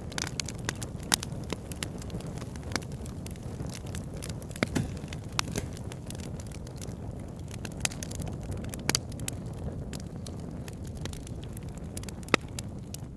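Wood fire burning: a steady low rumble of flames with frequent sharp, irregular crackles and pops, one especially loud pop near the end.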